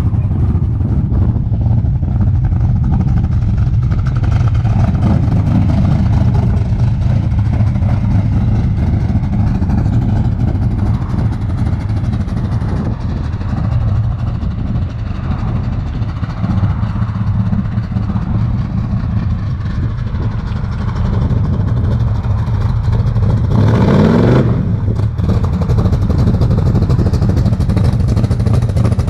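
Freshly built custom truck's engine running on its first start-up, its exhaust open and ending just under the truck with no tailpipes or tips. It runs steadily, with a short rev about three-quarters of the way through.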